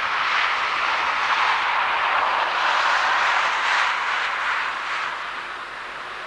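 Boeing 777's Rolls-Royce Trent 800 jet engines at taxi thrust: a steady hissing whoosh that swells as the aircraft passes and eases off near the end.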